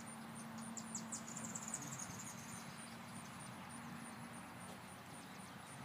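Faint, rapid high-pitched chirping of insects over low background noise, with a faint steady low hum under it that stops about four and a half seconds in.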